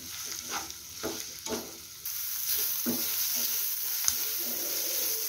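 Chopped onions frying in hot oil in a non-stick kadai, sizzling as a spatula stirs and scrapes them around the pan. The sizzling turns louder and steadier about two seconds in.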